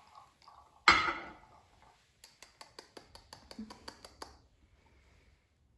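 A single sharp knock about a second in, as a small ceramic jug is set down on a hard surface. It is followed by a quick run of light clicks, about six a second for two seconds, as a plastic funnel and a glass bottle are handled.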